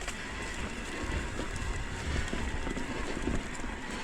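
Electric mountain bike being ridden along a dirt trail: a steady rush of tyre and wind noise, with irregular low knocks and rattles as the bike rolls over the ground.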